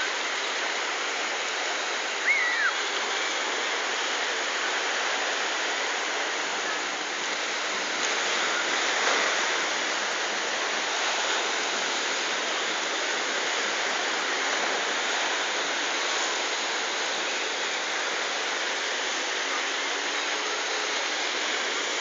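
Black Sea surf breaking and washing over a pebble beach: a steady rushing wash of water, with a brief high cry about two seconds in.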